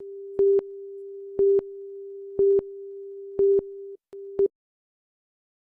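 Countdown leader tone: a steady single-pitched tone with a louder beep on it once a second, five beeps in all, dropping out briefly just before the last beep and cutting off suddenly about four and a half seconds in.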